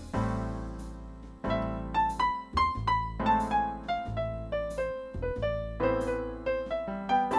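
Piano playing alone: chords over a bass line, with a melody that steps downward and then climbs again, each note struck and fading.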